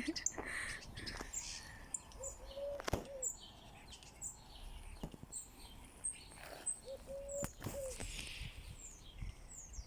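Birds chirping in many short high calls, with a few sharp clicks and two short steady lower notes, a few seconds apart.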